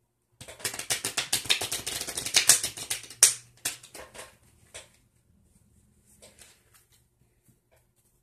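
A deck of playing cards being shuffled: a fast, dense run of card clicks for about three seconds, ending in one sharp snap, then a few scattered clicks as the cards are handled.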